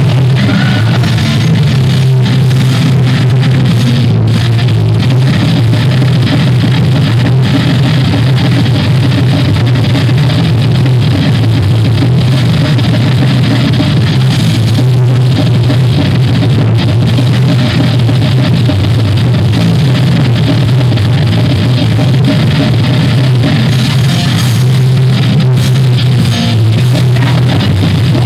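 Thrash metal band playing live: distorted electric guitar, bass guitar and drum kit in an instrumental passage without vocals, loud and even in level throughout.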